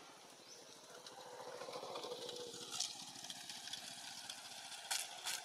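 A motor engine running with a fast, even pulse, swelling about two seconds in and then easing off. A few sharp clicks come near the end.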